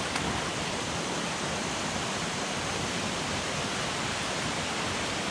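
Shallow creek water rushing steadily over rocks and riffles, an even rush with no breaks.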